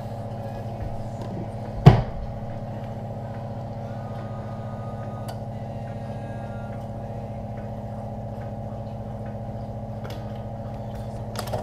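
Steady mechanical hum, with a single sharp knock about two seconds in.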